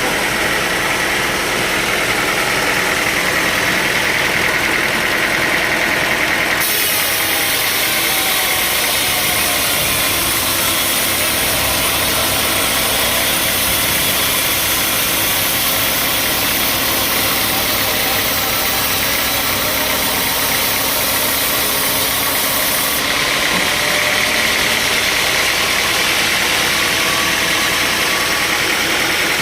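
Sawmill machinery running steadily. From about 7 seconds to about 23 seconds a brighter, hissier layer sits on top, and both changes are sudden.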